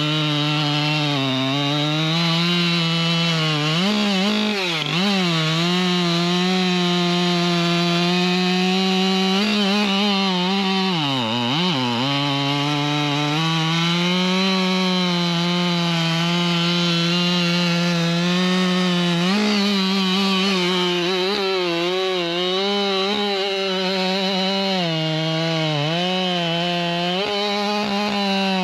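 Large two-stroke chainsaw running at full throttle through a long stretch of cutting, its steady high engine note sagging briefly and picking back up about four and eleven seconds in.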